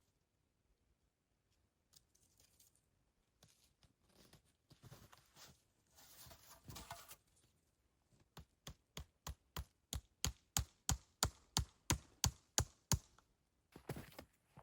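Rustling and handling noise, then a rapid run of sharp knocks, about three a second for some five seconds, followed by a few more scattered knocks.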